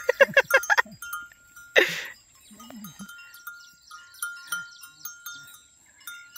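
Goat bleating close by: a loud quavering call right at the start and a short harsh one about two seconds in, followed by quieter low calls.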